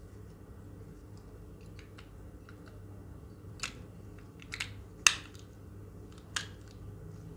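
Sharp plastic clicks and taps as batteries are pressed into the battery compartment of an LED loupe magnifier headband. Four louder clicks come in the second half, the loudest about five seconds in, over a low steady hum.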